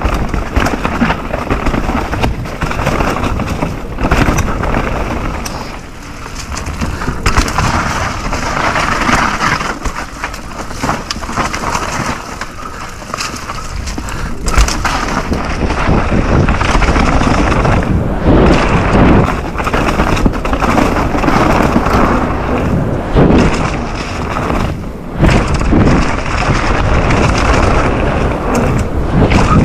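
Mountain bike descending a rough enduro trail: tyres rolling over dirt and rocks with frequent knocks from the bumps, and rumbling wind on the camera microphone, easing briefly a few times.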